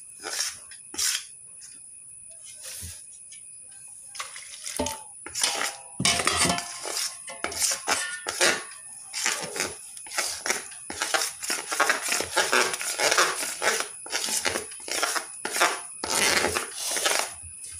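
Metal spoon scraping and clinking against a steel bowl as chilli and spice powders are stirred with brine into a thick pickle paste. A few separate clinks at first, then quick, continuous stirring from about six seconds in.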